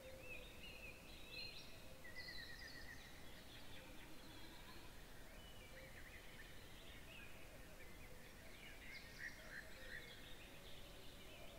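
Wolves howling faintly in the distance: long, low held notes that come and go. Small birds sing thin chirps and trills over them throughout.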